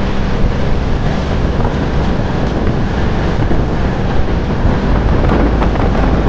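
Rushing wind and the steady rumble of a moving express train, heard at an open coach door, with a few faint wheel clacks near the end.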